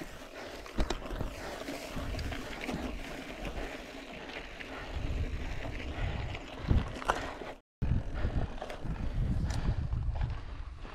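Mountain bike ridden over rough ground: tyres rolling and brushing through long grass and the bike rattling over bumps, with wind noise on the microphone. The sound drops out for a moment about two-thirds of the way through.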